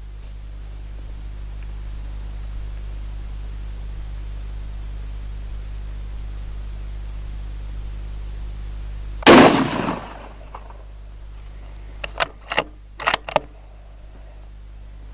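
A single shot from a Howa HLR bolt-action rifle in 6.5 Creedmoor, about nine seconds in, with a short echoing tail. A couple of seconds later comes a quick run of about five sharp metallic clicks as the bolt is worked to eject the case and chamber the next round. A steady low hum runs underneath.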